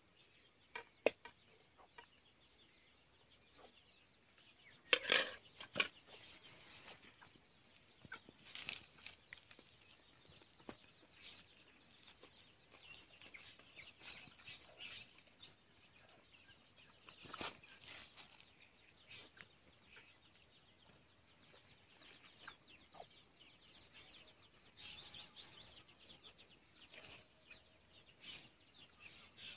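A few sharp clicks and knocks, the loudest about five seconds in, from a spoon against a steel pot and plate as snail curry is dished out. In the background, birds chirp and fowl cluck.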